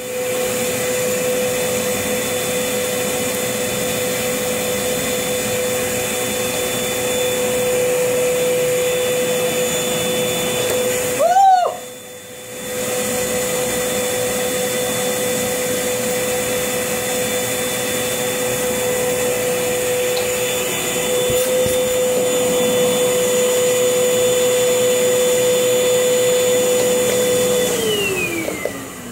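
Vacuum cleaner motor running with a steady whine. Its sound briefly drops and wavers about a third of the way through. Near the end the motor winds down with a falling pitch.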